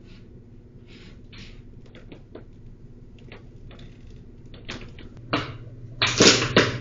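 A few faint clicks and knocks as a cabinet door is tried and does not open, then a run of loud gulps from drinking from a bottle near the end.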